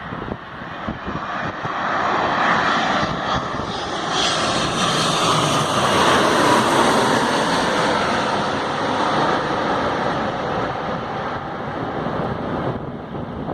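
Boeing 787 Dreamliner's twin jet engines going by on landing: the noise builds to a peak about six seconds in, with a whine that falls in pitch as it passes, then fades slowly.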